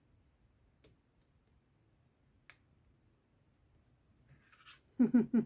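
A few faint, scattered clicks and taps of card being handled on a craft table. A woman's voice starts near the end.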